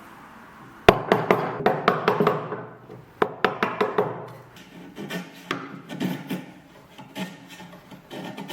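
Wood knocking: a quick run of sharp taps and knocks starting about a second in, another run a little after three seconds, then softer scattered knocks.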